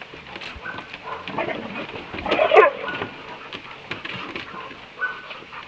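A group of dogs play-fighting, with a loud burst of dog vocalizing about two and a half seconds in, a few short high whines, and scattered clicks of claws on wooden deck boards.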